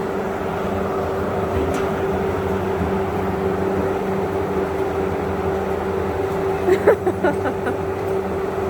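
Steady mechanical hum with a constant low droning tone, from running machinery such as a fan or motor. About seven seconds in, a few short high-pitched sounds cut through it.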